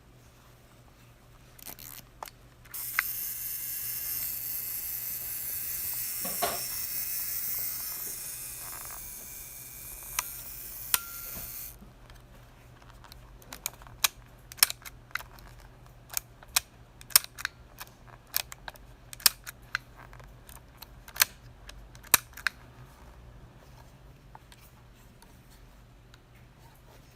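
Yashica Half 17 half-frame film camera being handled and worked: a stretch of steady hiss, then a long series of sharp mechanical clicks from its mechanism.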